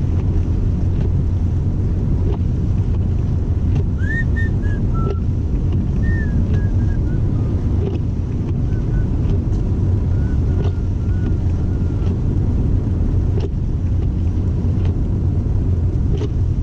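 Inside a car driving on a snow-covered road: a steady low engine and tyre rumble. Faint short squeaks come and go over several seconds in the middle.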